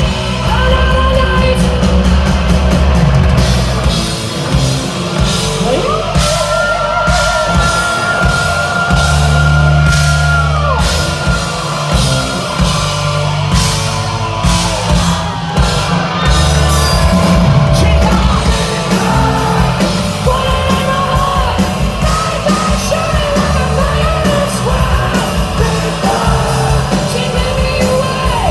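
Live hard rock band playing loud, with distorted electric guitar and drums and a male singer yelling the vocals. About six seconds in, a long high note is held for some five seconds.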